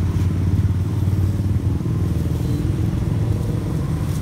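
Motorbike engine running close by, a steady low engine note.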